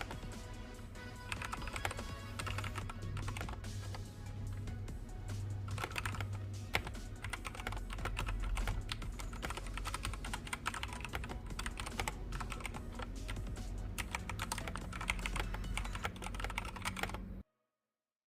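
Rapid typing on a Redragon Vishnu mechanical keyboard, dense key clicks, over music with a steady bass line; both stop abruptly about 17 seconds in.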